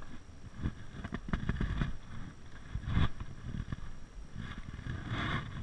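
Irregular low thumps and knocks, with one sharper, louder knock about three seconds in and a brief rustle near the end.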